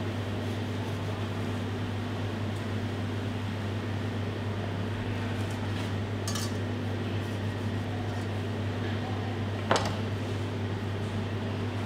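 Chef's knife knocking once sharply on a plastic cutting board near the end as it cuts through the end of a cling-film-wrapped roll of dried tuna, with a lighter click about six seconds in, over a steady low hum.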